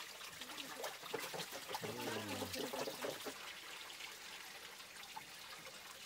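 Spring water running from a pipe spout and splashing into a stone basin: a steady trickle and splash.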